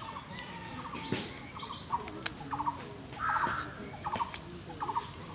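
Birds calling in short, rapid chattering trains that repeat every second or so, with a few sharp clicks between them.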